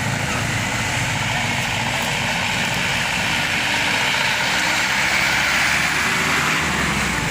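Motorbike and car engines idling and creeping past in traffic, with background voices of people nearby.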